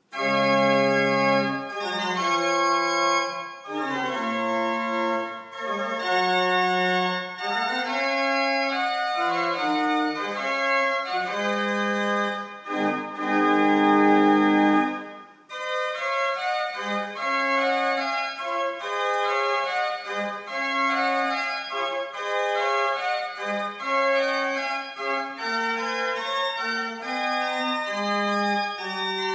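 Pipe organ, the Great Organ of Adlington Hall, playing a classical piece in sustained chords. A loud full chord about halfway through stops abruptly, and a lighter passage of quicker moving notes follows.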